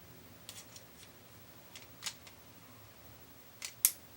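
Sharp mechanical clicks from a cable tie tool being handled: a few faint ones, a clearer one about two seconds in, and a close pair near the end, the last the loudest.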